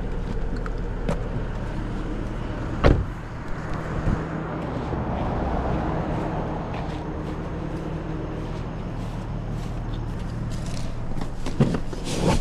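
2009 Saab 9-7X engine idling steadily, with a sharp knock about three seconds in and a few clicks near the end.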